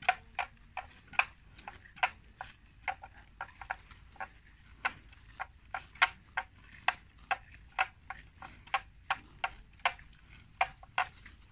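Buffalo grazing: crisp, irregular snaps of vegetation being torn off and chewed, about two or three a second.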